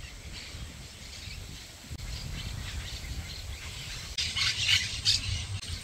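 Outdoor riverbank ambience: faint bird chirps, with a low wind rumble on the microphone from about two seconds in and a brief cluster of brighter chirps or rustles near the end.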